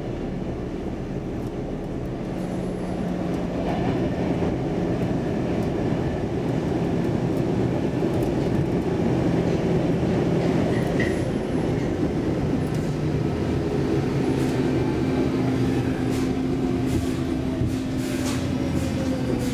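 Interior of a Stockholm Metro C15 subway car running through a tunnel: steady rumble and wheel-on-rail noise. Over the last few seconds a whine falls steadily in pitch, with some clicks, as the train slows into a station.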